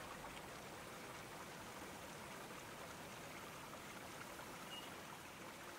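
Faint steady hiss with no distinct events.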